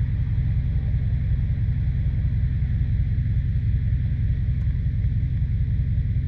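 Chrysler 300 SRT8's 6.4-litre Hemi V8 running under way, a steady low rumble with a fast, even pulsing. It carries the heavy tick the owner hears under 2,000 rpm, which he suspects is lifters or his leaking exhaust manifolds.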